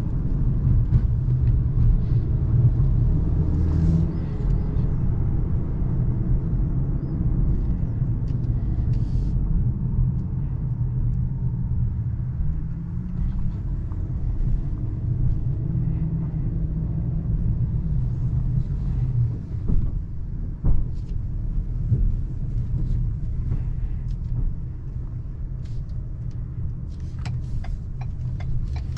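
2023 Ford Maverick Lariat FX4's 2.0-litre turbocharged EcoBoost four-cylinder engine pulling the truck along, with a steady low engine and road rumble whose pitch rises and falls a little. A few light clicks come near the end.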